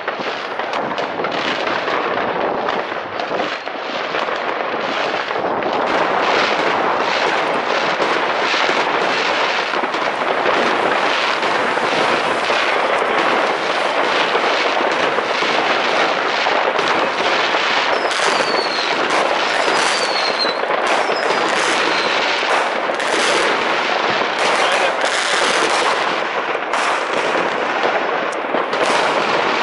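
Fireworks going off in a dense, continuous barrage of bangs and crackles. A few short falling whistles come through about two-thirds of the way in.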